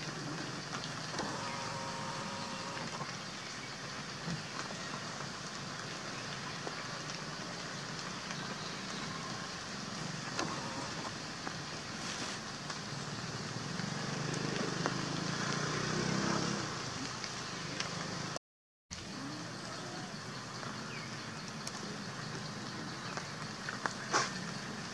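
Steady outdoor background noise with a motor vehicle passing, swelling to its loudest about two thirds of the way through. The sound drops out for a moment shortly after, and a few sharp clicks come near the end.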